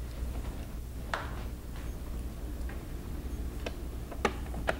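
Scattered light clicks of a small screwdriver and the case cover screw against the plastic housing of a 2GIG Go!Control alarm panel, about six irregular ticks while the screw is set in place, over a low steady hum.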